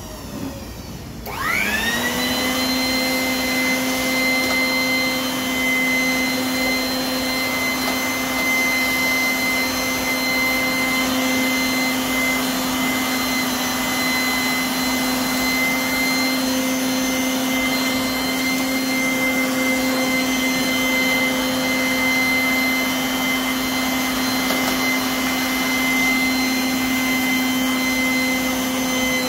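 Handheld electric blower-vacuum starting up about a second in, its motor whine rising quickly and then holding one steady pitch as it runs continuously, cleaning dust out of a computer case.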